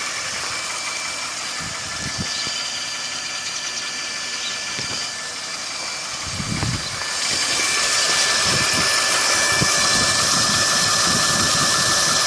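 Warmed-up Chevrolet Epica engine running, with a steady whine and whirr from the lower front of the engine. The owner suspects the oil pump chain or worn gear clearances in the oil pump. The sound gets louder about seven seconds in.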